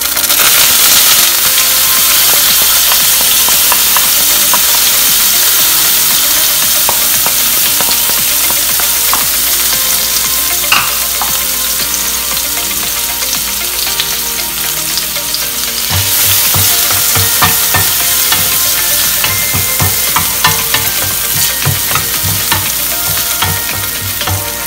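Chopped garlic sizzling in hot oil in a stainless steel pan, starting suddenly as it is tipped in. It is stirred with a wooden spatula near the end.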